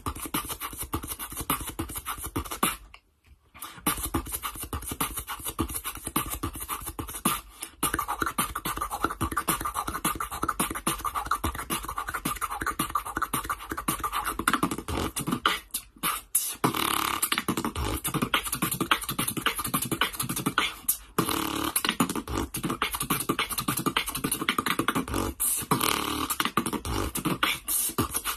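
Solo human beatboxing: a fast, dense stream of vocal kick, snare and hi-hat sounds made with the mouth, breaking off for a moment about three seconds in before the beat resumes.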